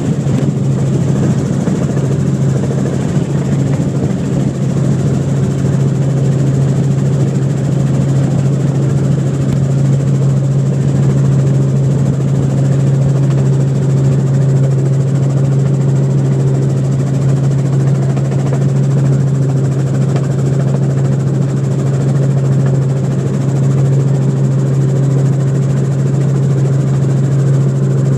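Helicopter engine and rotor noise heard from inside the cabin in flight: a loud, steady drone with a constant low hum and a faint high whine above it.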